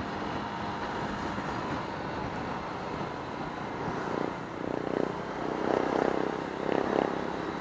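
Motor scooter being ridden in traffic: steady engine drone mixed with road and wind noise over the microphone, growing louder and more uneven from about four seconds in.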